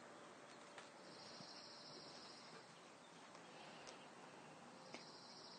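Near silence: a quiet outdoor background with a faint high-pitched insect trill, heard about a second in and again near the end, and a few faint ticks.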